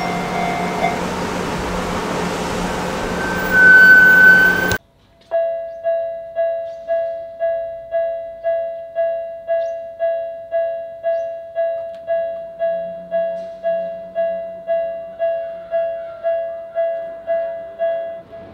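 Japanese railway crossing electronic warning bell ringing steadily, about two strikes a second, as the crossing signals flash and the barriers lower. Before it, for the first few seconds, there is a steady outdoor noise with a loud high-pitched tone about four seconds in, cut off abruptly.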